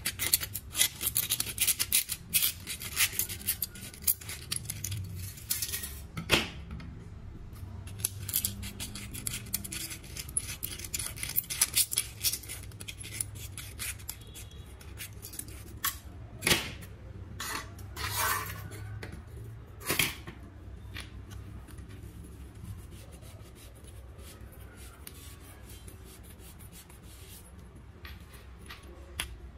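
Scissors snipping through the thin aluminium wall of a drink can, a quick run of crisp cuts for the first several seconds, then a few single loud snips and clinks of metal. Near the end, softer rubbing as the can's bottom is wiped with a terry towel.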